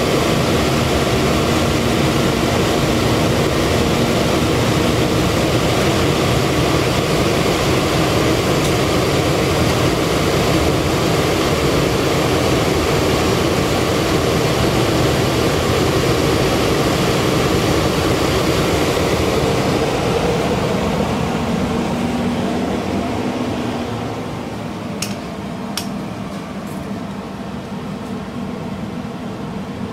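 Minneapolis Blower Door fan, fitted with its B flow ring, running steadily and depressurizing the house for a blower door test: a loud, even rush of air with a low hum. It becomes somewhat quieter a little over twenty seconds in, and a few light clicks come near the end.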